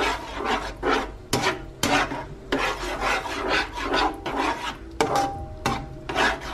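A metal utensil stirring and scraping thick cream sauce in a pan: irregular rasping strokes with a few sharp clinks of metal against the pan.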